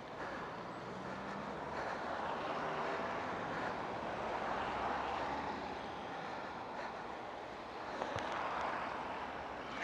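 Cars passing close by on a rain-soaked dual carriageway, their tyres hissing through the wet road surface. The hiss swells as vehicles go by, about halfway through and again near the end, with one sharp click just after the second swell begins.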